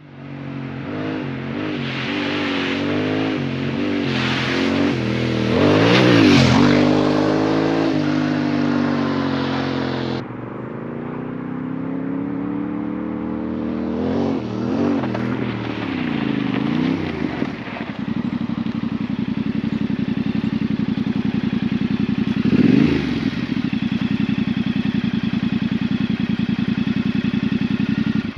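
Yamaha Ténéré 700's parallel-twin motorcycle engine revving up and down as the bike is ridden, rising and falling in pitch, then settling into a steady idle for roughly the last ten seconds.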